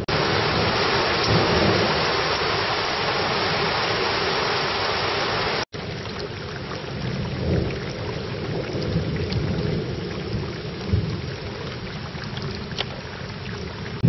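Heavy thunderstorm downpour, a dense steady hiss of rain. About six seconds in the sound breaks off for an instant, and the rain then goes on a little lighter, with several low rumbles of thunder rising and fading.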